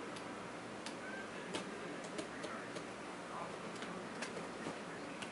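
Knife cutting along the tightly sealed edge of a cardboard box: irregular small, sharp clicks and ticks, roughly two a second, over a faint hiss.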